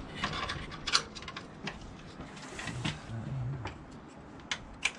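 Scattered light clicks and rubbing from a spanner and nuts and bolts being worked on a tractor's battery lead terminal, with a faint murmur of a voice in the middle.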